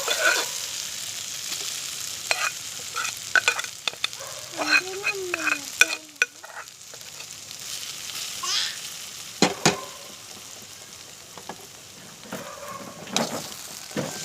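Onion-and-spice roast masala sizzling in hot oil in a pan as it is stirred, the spoon knocking and scraping against the pan again and again, with two sharp knocks a little past the middle.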